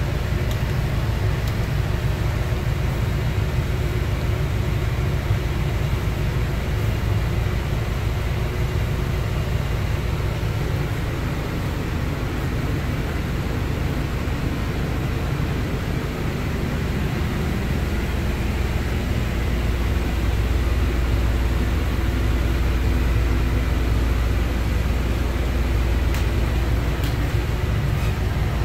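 Steady low machine rumble with a faint hum, deepening and getting a little louder about two-thirds of the way through.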